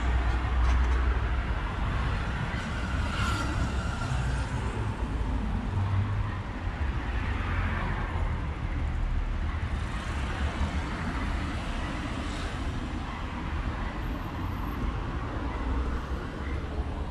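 City street traffic: cars passing by over a steady low rumble.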